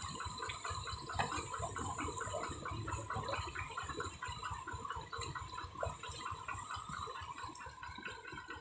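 Rice-paddy ambience: a fast, even chirping chorus of about five calls a second over a steady high drone, with low water sloshing underneath.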